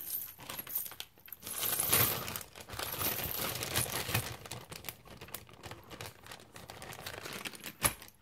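A bunch of metal key rings hung with resin pendants and beads being handled, clinking and jangling, with some rustling. A sharp click near the end.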